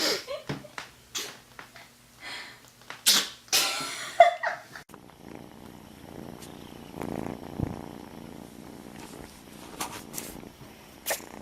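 A cat sneezing several times in quick succession in the first five seconds, the loudest sneezes about three to four seconds in. Then a cat purring steadily, with two more short sneezes near the end.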